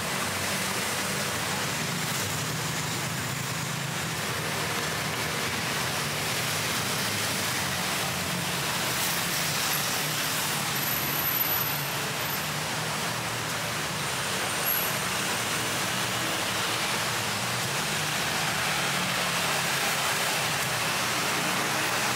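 Steady traffic noise of a busy city road: engines of passing vehicles running in a continuous hum of tyres and motors.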